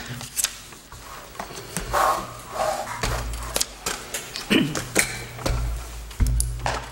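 Paper rustling and handling noise picked up by tabletop microphones: scattered clicks and taps, with low thumps about three seconds in and again near the end.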